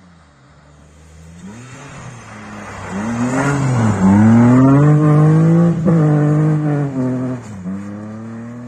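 BMW 3 Series Compact rally car driving past at speed on a snowy stage road, its engine revving hard with pitch rising and then dipping at gear changes. It is loudest as it passes, about four to six seconds in, then fades as the car drives away.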